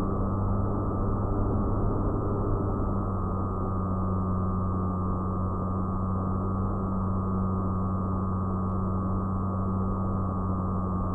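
An FPV fixed-wing model plane's motor and propeller whining steadily in flight at a nearly constant pitch, with a rushing noise underneath, heard through the plane's onboard camera.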